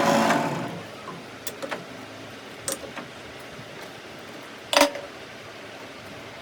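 Background music fading out within the first second, then a steady low background with a few light clicks and one louder sharp knock with a short ring about five seconds in.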